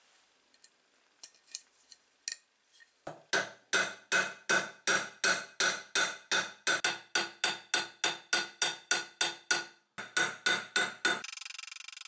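A hammer peening new steel rivets on a steel axe head clamped in a bench vise: quick, even strikes, about three or four a second, each with a metallic ring, with a short break about ten seconds in. Faint clicks of the rivets being handled come before the hammering, and a steady high-pitched sound takes over near the end.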